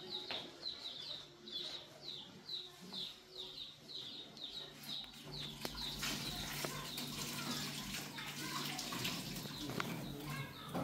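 A small bird chirps over and over, a short falling chirp about three times a second. From about five seconds in a kitchen tap runs water into the sink, with a low hum and a few sharp clinks of dishes being washed.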